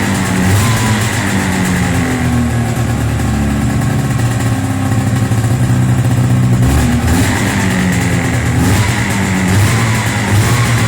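Taiga 500 snowmobile's two-stroke twin-cylinder engine running on fresh spark plugs, its speed wavering up and down, with a brief dip and pick-up about two-thirds of the way through. The engine runs badly, sneezing and running on one cylinder, which the mechanic puts down to an air leak.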